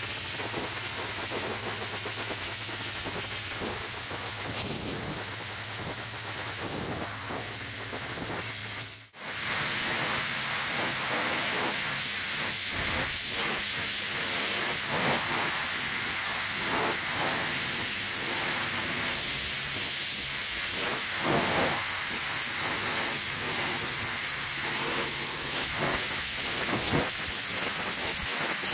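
Pressure-washer lance jet blasting grooved timber decking boards: a steady hiss of high-pressure spray stripping grime off the wood. The sound drops out briefly about nine seconds in, then comes back louder and closer.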